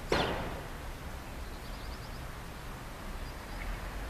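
Outdoor street ambience with a steady low rumble and faint, rapid high bird chirps about a second and a half in. A sudden loud sound at the very start drops in pitch and fades within half a second.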